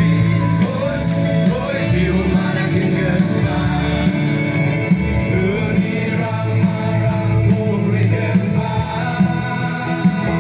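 Live gospel worship band playing a song in Garo: several singers on microphones over electric and acoustic guitars, amplified through the PA.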